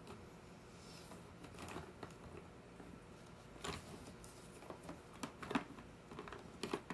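Wax crayons clicking and rattling against one another in a plastic crayon tub as a hand rummages through them: faint scattered clicks, busiest in the second half.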